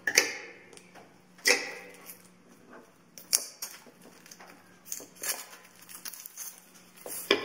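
Clear plastic shrink wrap crinkling and crackling as it is peeled off a phone's cardboard box, in a run of sharp crackles with quieter rustling and box handling between them.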